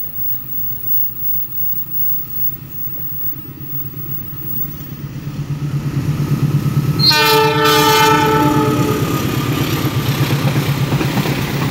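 CC206 diesel-electric locomotive hauling an empty freight train, its engine rumble growing steadily louder as it approaches and passes close by. One horn blast about seven seconds in, lasting about a second.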